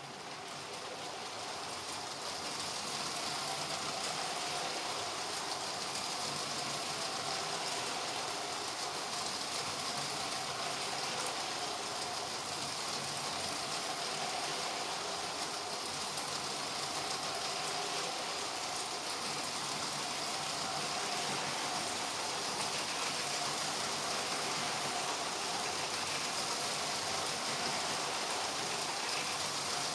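Electric motors of toy LEGO trains running around a plastic track, a steady whir that swells over the first few seconds and then holds.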